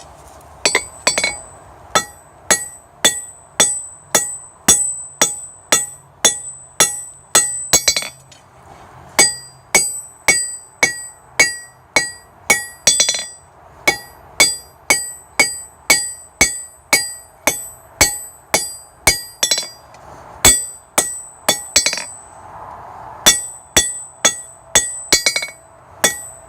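Blacksmith's hand hammer striking a hot titanium bar on an anvil, steady blows a little under two a second, each with a bright metallic ring, with a few brief pauses between runs of blows.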